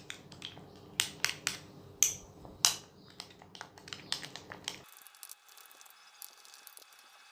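A wet, sticky slime mix of soaked tissue paper, glue and shampoo being stirred in a bowl, giving irregular squelching clicks and taps from the utensil against the bowl. The sound turns fainter and thinner about five seconds in.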